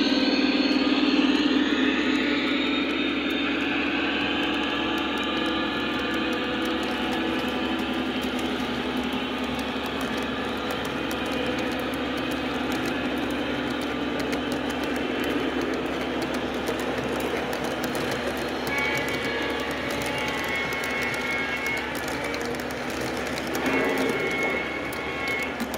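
Lionel O-gauge model freight train rolling past on the track, a steady rumble and clatter of wheels on rail. At the start the SD70ACe locomotive's diesel engine sound fades as it moves away, and near the end a thin high tone comes in twice, briefly.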